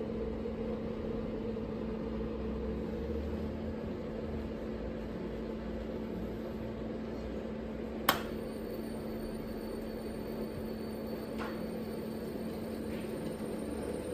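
Mitsubishi FR-A240E-15K inverter under test, giving a steady electrical hum with fan noise. About eight seconds in a sharp click sounds, and after it a faint high-pitched whine sets in and holds.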